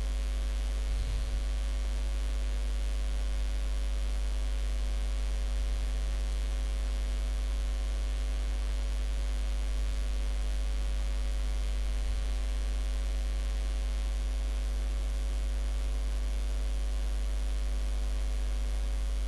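Steady low electrical mains hum with a faint buzz of evenly spaced overtones, picked up in the recording chain.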